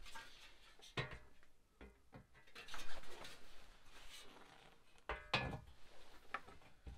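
A painted radiator fan shroud handled and set down onto an aluminium radiator: rubbing and scraping with a few knocks, the clearest about a second in and about five seconds in.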